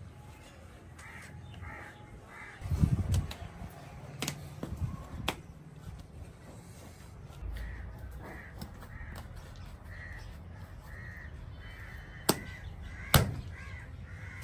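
Crows cawing again and again in the background, with dull thuds and slaps of wet clay being kneaded by hand on a concrete floor and two sharper knocks near the end.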